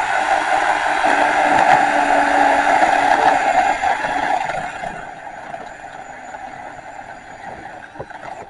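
Battery-powered electric chainsaw cutting through a tree trunk on the felling cut, a steady high motor whine under load. It runs loudest for the first four seconds or so, then continues noticeably quieter from about five seconds in.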